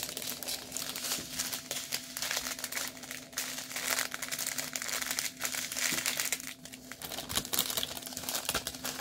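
Small plastic packets of diamond-painting drills crinkling and rustling irregularly as they are handled.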